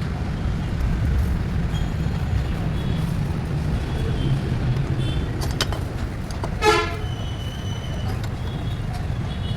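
Steady low vehicle rumble with one short horn toot about seven seconds in.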